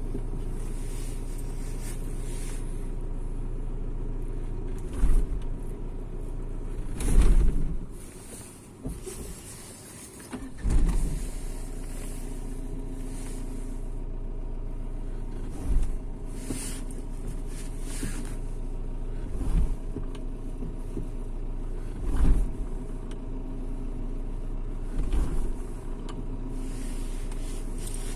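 Mitsubishi Shogun 3.2 DI-D four-cylinder turbodiesel running steadily, broken by seven loud clunks at uneven intervals of a few seconds. These are the fault clunks the vehicle is being recorded for.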